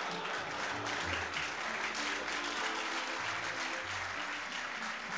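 Audience applauding, with background music of slow, held bass notes underneath.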